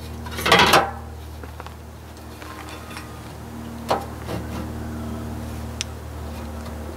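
Sheet-metal radiator shroud clanking and scraping as it is handled and offered up to a tractor radiator. The loudest clatter comes about half a second in, then a single knock about four seconds in and a light click near the end, over a steady low hum.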